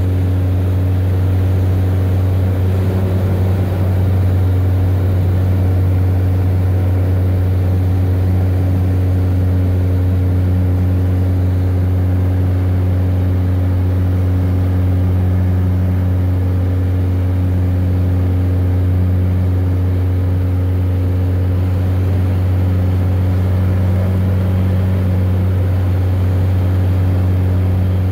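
Light aircraft's piston engine and propeller droning steadily in cruise, heard from inside the cabin: a loud, even low hum with a few fainter higher tones above it.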